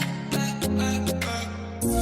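Background music with plucked string notes over a steady bass line.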